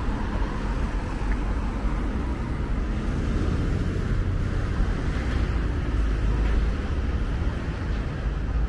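Road traffic on a town street, cars passing, over a steady low rumble.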